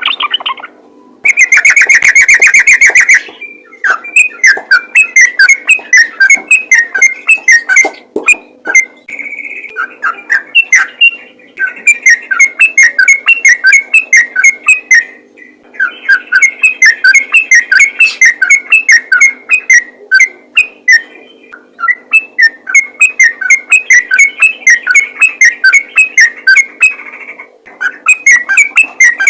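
Yellow-vented bulbul (trucukan) singing a rapid, continuous run of short bubbly chirps in long phrases with brief pauses. Near the start a loud held tone sounds for about two seconds, and a faint steady hum runs underneath.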